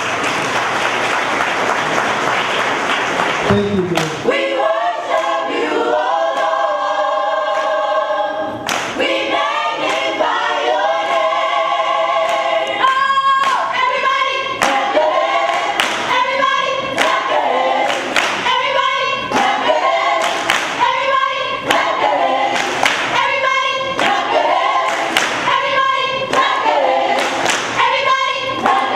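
A few seconds of applause, then a teen gospel choir singing, mostly a cappella. From about nine seconds in, a steady hand-clapping beat of about one clap a second joins the singing.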